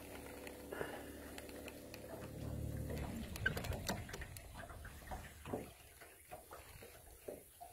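Fishing reel clicking faintly and irregularly while a hooked fish is played, the clicks coming thickest about halfway through and thinning out near the end. A low rumble sits under the first half.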